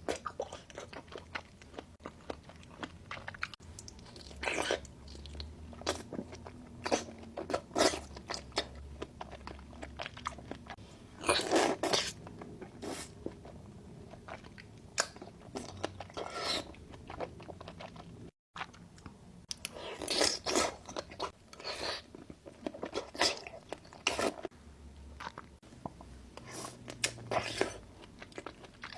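A person biting and chewing crunchy food close to the microphone: irregular loud crunches amid steady chewing. The sound cuts out for a split second about two-thirds of the way through.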